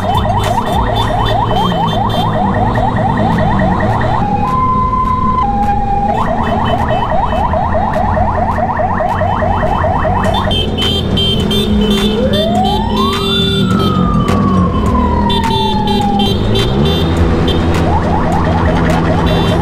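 Electronic siren cycling through its modes: a fast yelp, a brief two-tone hi-lo about four seconds in, the yelp again, then one slow wail that rises and falls near the middle, and the yelp returning near the end. Under it runs a steady motorcycle engine.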